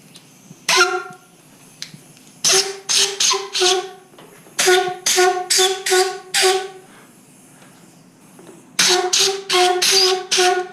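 Sur-Ron electric horn honked in short beeps: a single beep, then three quick runs of four or five beeps each, testing the horn switch on the freshly mounted handlebar controls.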